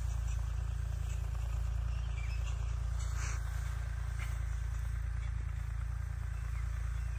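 Tractor engine running steadily: an even, low drone.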